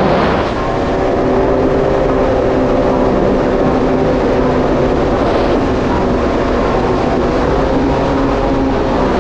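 Yamaha GP1800R SVHO jet ski's supercharged four-cylinder engine running at a steady cruising speed, its pitch holding level throughout.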